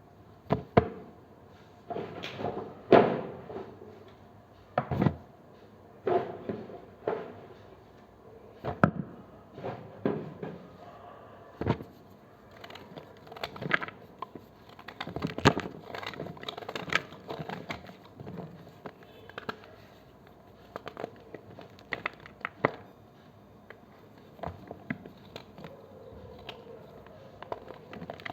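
Knife cutting through blocks of gym chalk: a run of irregular crisp crunches and snaps, roughly one a second, some much louder than others.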